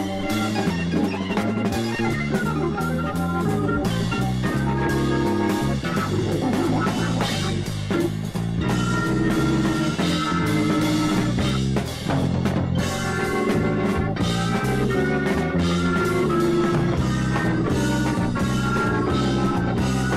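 Rock music with electric guitar and drum kit playing.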